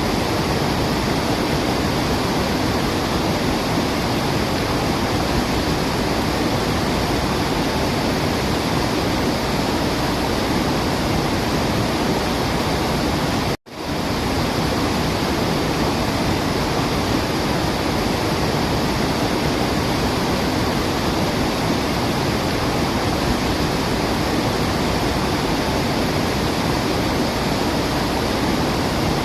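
Waterfall rushing steadily, an unbroken hiss of falling water. It cuts out for a split second about halfway through, then fades straight back in.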